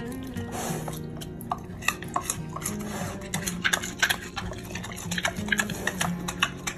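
Pet pig chewing and smacking on a hand-fed treat: an irregular run of sharp clicks and crunches that gets busier after the first second or so, over background music.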